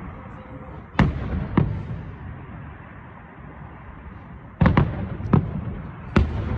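Fireworks going off: about six sharp bangs at uneven intervals, two near the start and a quick cluster in the second half, each trailing off into a low rumble.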